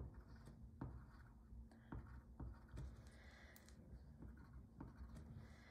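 Faint taps of a pen marking small dots onto graph paper: a handful of light, irregularly spaced ticks.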